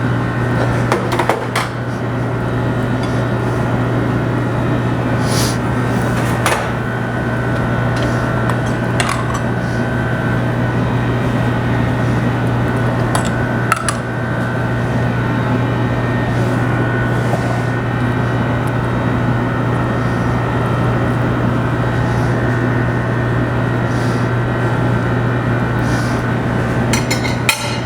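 Steady, loud mechanical hum, with a few sharp clicks and clatters scattered through it, a couple about a second in, a few around five to nine seconds, one about fourteen seconds in, and a cluster near the end.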